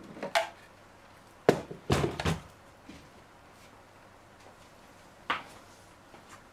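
A few sharp knocks and clunks of a small plastic submersible pump, a Terada SL-52, being set down and handled on a wooden workbench. The loudest cluster comes about one and a half to two and a half seconds in, with a single knock about five seconds in.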